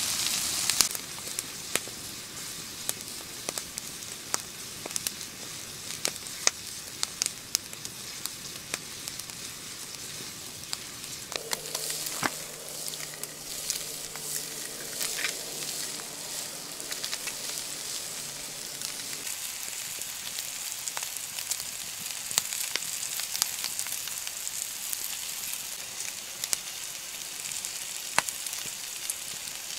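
Bacon and mushrooms sizzling in a steel frying pan over an open wood fire: a steady hiss with frequent sharp pops throughout. A low steady hum sounds for several seconds midway.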